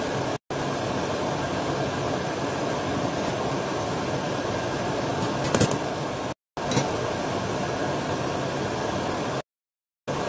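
Steady whooshing hum of a kitchen range-hood fan running over the stove, with a couple of short clinks about halfway through. The sound cuts to dead silence briefly three times.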